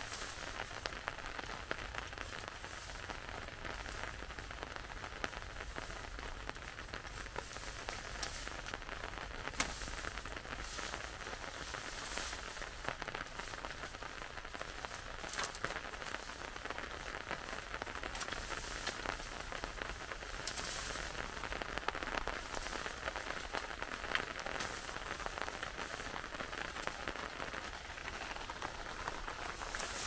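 Steady rain falling on a surface: an even hiss dotted with many small, sharp drop hits, swelling briefly a few times.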